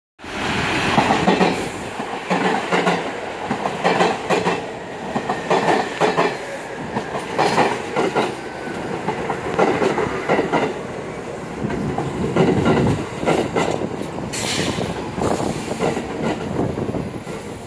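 MTA R46 subway train pulling into a station and slowing to a stop, its wheels clattering over the rail joints in a fast, uneven run of clicks.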